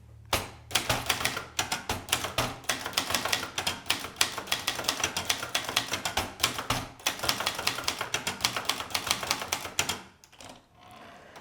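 Brother Deluxe 220 manual portable typewriter being typed on: a quick, uneven run of key strikes, several a second, that stops about ten seconds in.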